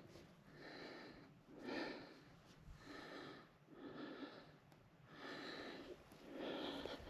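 A person breathing hard, with rhythmic, breathy in-and-out breaths at about one a second.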